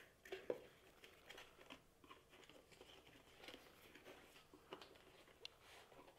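Faint rustling and light clicks of a small cardboard box being handled, its flap opened and the black inner tray slid out of its sleeve.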